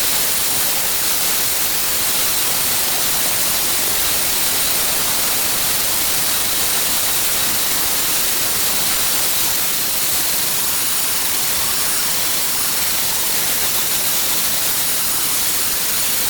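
Power grinder held flat against the face of a Stihl hedge trimmer blade, grinding off dirt and smoothing the metal with a steady hissing noise.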